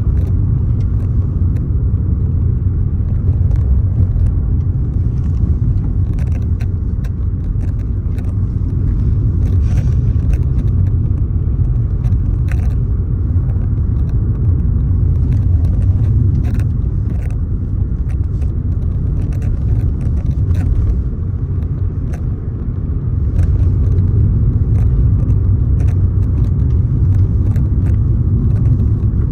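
Wind buffeting the microphone: a loud, steady low rumble, with faint scattered clicks.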